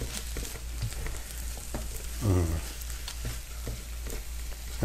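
Brussels sprouts, bell peppers and onion sizzling in butter and oil in a wok as they are stirred with a spatula, with scattered light clicks of the spatula on the pan. A short hum of a voice comes about halfway through.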